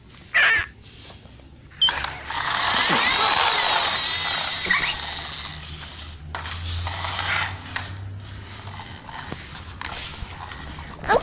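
Plastic toy excavator being handled and pushed along a tile floor: plastic parts clattering and wheels rolling and scraping on the tiles. There is a sharp knock just before two seconds in, and the noise is loudest for a few seconds after it.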